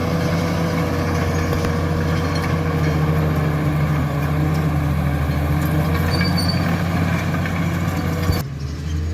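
Caterpillar bulldozer's diesel engine running steadily while levelling ground. Near the end the sound changes abruptly to a quieter, duller engine sound.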